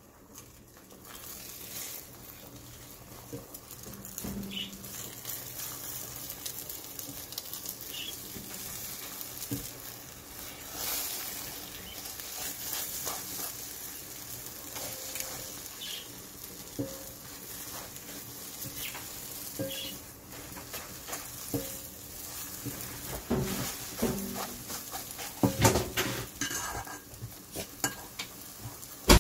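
Beaten eggs sizzling in a stainless steel pot while a silicone spatula scrapes and stirs them, with scattered knocks of the spatula against the pot. The scraping and knocks get busier and louder near the end.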